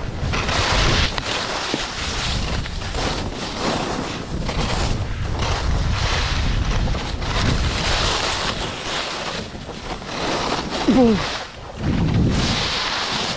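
Wind rushing over the microphone and skis hissing and scraping on packed snow during a downhill ski run, the noise swelling and easing with the turns. A brief falling tone sounds about eleven seconds in.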